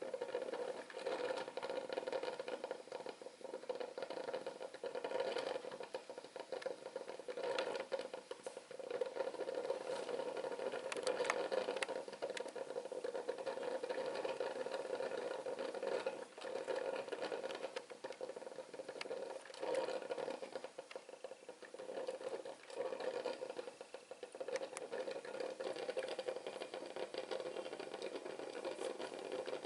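Pigeon electric drip coffee maker brewing: a continuous uneven gurgling and sputtering with small clicks over a steady hum.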